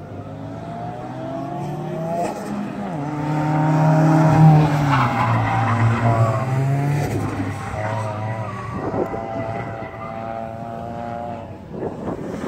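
A sedan's engine revving up and dropping back repeatedly as it is driven hard through corners, with its tires squealing and skidding on the asphalt.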